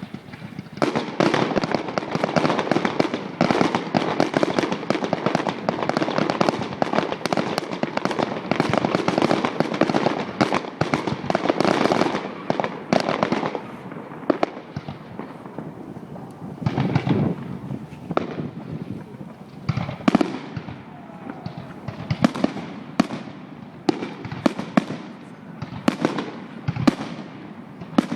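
Fireworks display: a dense, rapid run of bangs and crackling for about the first half, then thinning out to separate bangs a second or two apart.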